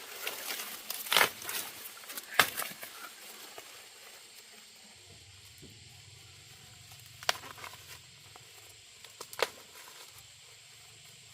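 Dry rustling and crackling with several sharp snaps, busiest in the first three seconds, then two isolated snaps a couple of seconds apart over a faint low hum.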